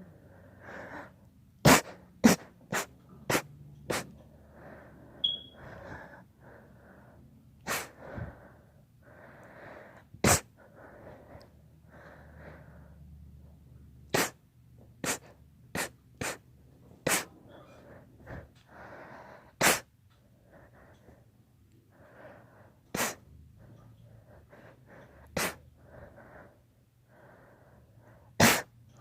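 A long series of short, sharp sneezes, about seventeen, some in quick runs of several close together and others a few seconds apart, with faint breathing between them.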